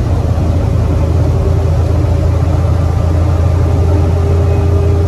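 Suzuki Bolan (Carry) van's small three-cylinder engine and road noise, heard from inside the cabin while driving: a steady low drone, with a faint steady whine joining about three and a half seconds in.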